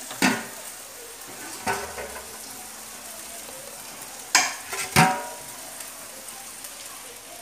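Vijayalakshmi tabletop wet grinder running, its stone rollers churning rice and urad dal into thick dosa batter with a steady swishing hiss. Four brief clinks stand out, one right at the start, one near two seconds in and two close together around four to five seconds in.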